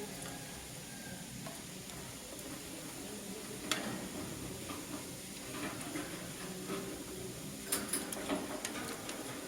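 Soft crackling and rustling from lovebirds moving about, with a sharp click about four seconds in and a cluster of clicks near the end.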